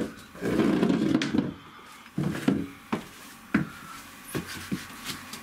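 Handling noise from a large thin wall panel being gripped and shifted: dull scraping and rubbing, with about eight sharp knocks and taps scattered through.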